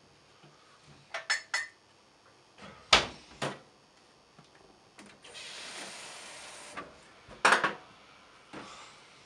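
Kitchen handling sounds at a steel counter: a few light clicks, then two sharp knocks, a steady hiss lasting about a second and a half in the middle, and another sharp knock near the end, as a glass jar and food things are picked up and set down.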